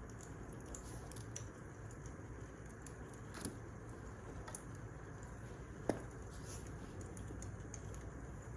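Wood fire burning, with a steady low rustle and scattered small crackles, and two sharper pops about three and a half and six seconds in, the second the louder.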